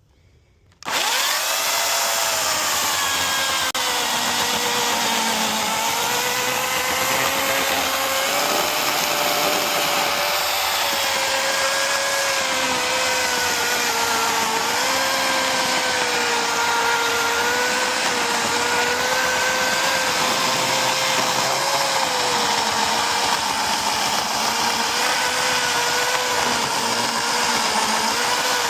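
Chainsaw running. It starts abruptly about a second in, its pitch rising as it comes up to speed, then runs steadily with the pitch wavering slightly.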